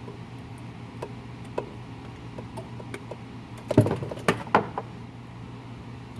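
Scattered sharp clicks and knocks from hand work on the peristaltic pump's hose and its zip tie, with a quick cluster of louder ones about four seconds in, over a steady low machine hum.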